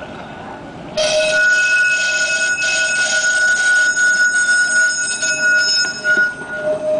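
Steel wheels of a passing tramcar squealing loudly against the rails, a shrill sound of several steady, wavering high tones that starts suddenly about a second in and lasts until near the end.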